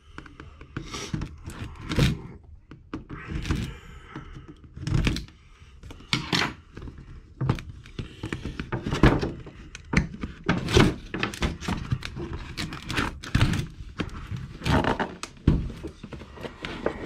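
Cardboard box being handled on a workbench: a series of irregular knocks and thunks, with the cardboard scraping and tapping as it is moved and tipped over.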